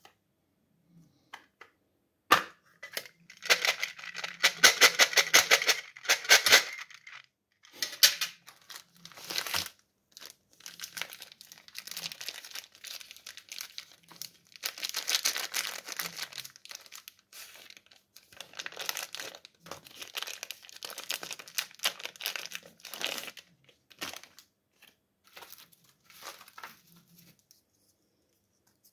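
Plastic candy wrappers crinkling and tearing as sweets are handled and unwrapped by hand, in several bursts of crackling separated by short pauses, thinning to a few soft clicks near the end.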